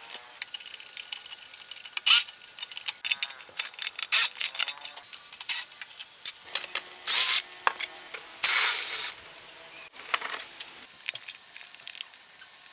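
Hand tools clicking and clinking against metal parts, with two short loud hissing bursts about seven and eight and a half seconds in.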